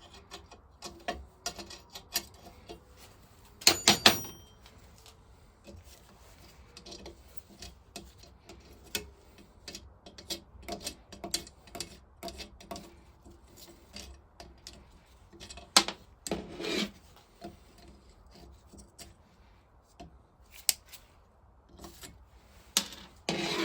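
Metal engine parts being handled and worked on a bench: rubbing and scraping with scattered small clicks and clinks. There is a louder ringing metallic clang about four seconds in and another sharp knock past the middle.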